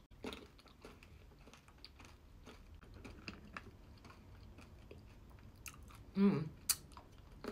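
Close-up chewing and crunching of candy-shelled Cadbury Mini Eggs with chocolate mousse: a run of small, quiet crunchy clicks. A short voiced sound from the eater comes about six seconds in.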